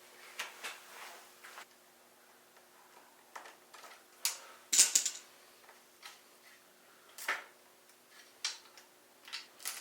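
Scattered clicks, knocks and light metallic clatter of bicycle parts and tools being handled: a stripped bike frame being moved and set down, with the loudest knock about five seconds in.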